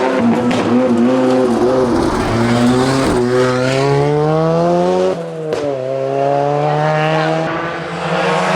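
Ford Sierra Cosworth rally car's engine under hard acceleration, pitch rising through the gears, with a quick break for an upshift about five seconds in and another near the end.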